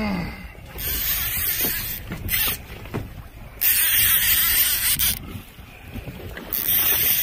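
Gusts of wind buffeting the microphone, cutting in and out in loud blasts of hiss about a second in, near the middle and near the end, over the steady low rumble of a fishing boat at sea.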